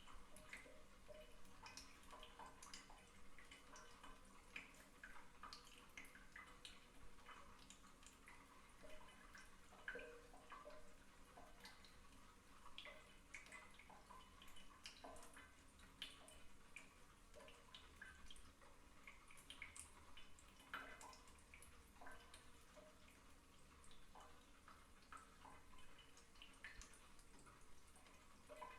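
Faint water sounds of a person sitting in a filled bathtub while the faucet drips slowly: many small, irregular drips and little water movements, several a second.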